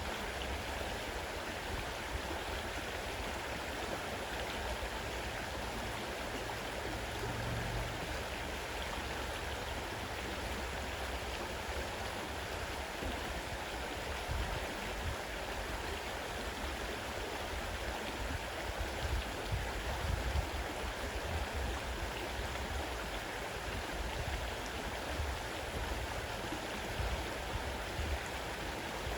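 Fast-running river water rushing steadily over its bed.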